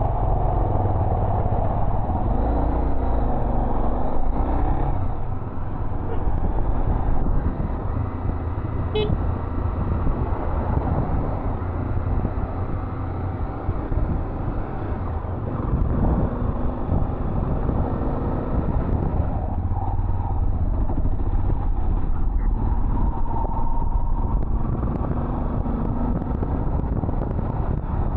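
Honda XRE300 single-cylinder dual-sport motorcycle running on the move, its engine note rising and falling with the throttle over a steady low rumble.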